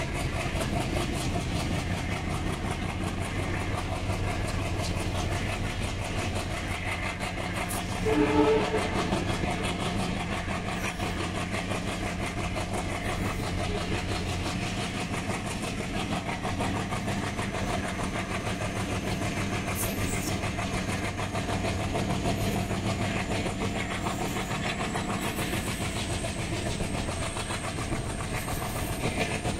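WDM3A diesel locomotive (ALCO 251 16-cylinder engine) working under load ahead of the train: a steady low humming over the rolling clatter of the passenger coaches' wheels on the rails. About eight seconds in, the locomotive's horn sounds briefly.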